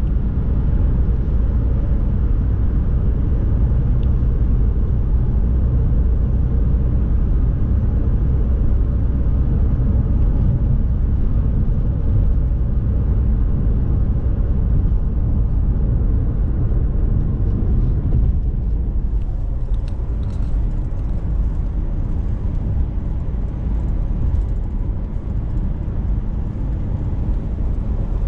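Steady road and engine noise inside a moving car's cabin at road speed: a low, even rumble.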